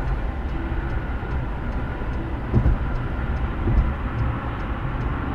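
Road and engine noise inside a car driving on a highway: a steady low rumble, with two dull thumps about halfway through and again about a second later.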